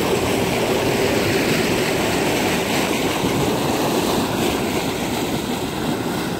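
A boat's new V8 engine running steadily in gear, its propeller churning the water into a rushing wash at the stern. The level eases a little near the end.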